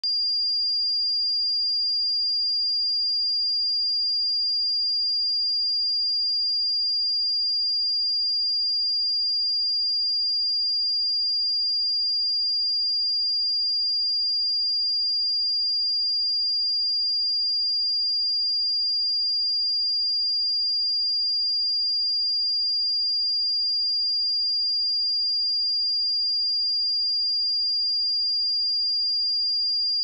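A pure 4805 Hz sine-wave test tone, one steady high-pitched pitch held without change.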